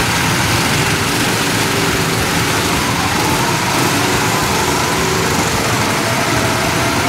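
Several go-kart engines running steadily at idle, a loud even drone.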